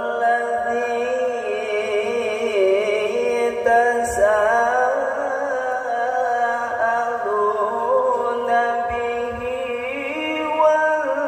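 A male Quran reciter (qari) chanting in the melodic tilawah style, one voice sustaining long, ornamented held notes that slide up and down in pitch. The reciter has a cough.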